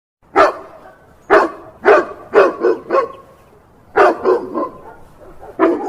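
Dog barking repeatedly, about ten sharp barks in short runs with brief pauses between them.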